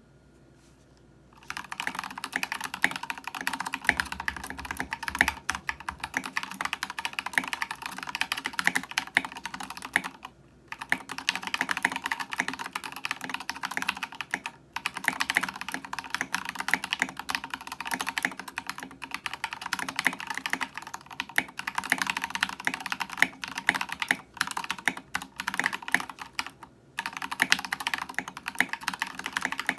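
Rapid continuous typing on a mechanical keyboard with prelubed Gateron Pink switches and Ducky Cotton Candy SA-profile keycaps. The keystrokes start about a second and a half in and run dense and fast, with a brief pause about ten seconds in and another near the end.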